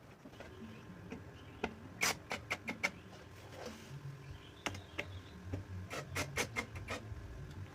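Light clicks and knocks in short quick runs, about two seconds in and again in the second half, over a low steady hum.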